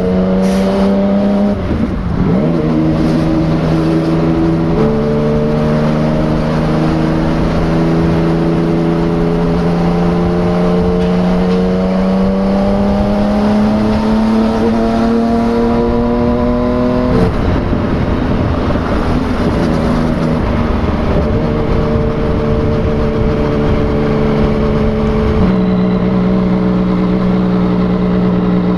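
A Yamaha MT-09's three-cylinder engine running through a replica Akrapovic exhaust while the bike is ridden. The note climbs slowly under steady throttle and drops abruptly twice, about two seconds in and just past halfway, before settling to a steadier pitch near the end.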